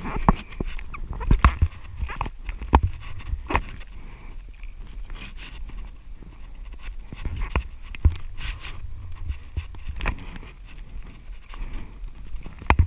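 A hiker breathing hard while scrambling up a steep trail, with scattered scuffs and knocks from footsteps and hands on rock, over a low rumble of wind on the microphone.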